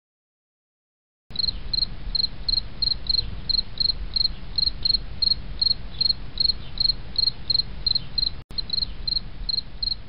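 Cricket chirping: high, evenly repeated chirps, about three a second and often in pairs, over a faint low rumble, starting about a second in.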